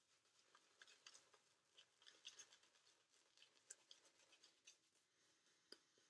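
Faint, irregular crackle of a Semogue badger shaving brush working lather on the face with very little pressure.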